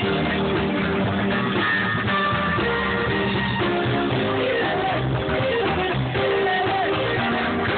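Music with guitar playing steadily.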